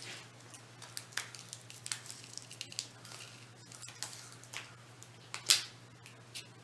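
Faint scattered ticks and small taps of a hand working over watercolour paper as a pinch of Epsom salt is sprinkled onto the wet paint, with the sharpest tap about five and a half seconds in. A low steady hum runs underneath.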